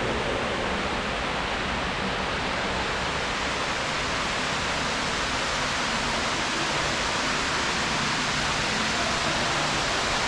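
Steady, even rushing of running water in a penguin pool.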